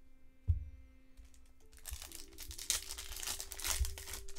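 Trading-card pack wrapper crinkling and tearing as it is opened, starting about two seconds in, after a single low thump near the start.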